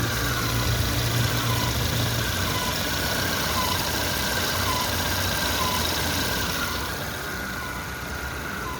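GM Chevrolet engine idling with a short squeak that repeats about once a second over the engine noise: the water pump noise that the mechanic identified with a stethoscope, a pump due for replacement.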